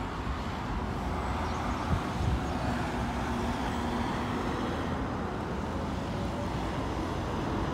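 Steady road traffic noise: cars driving past on the road.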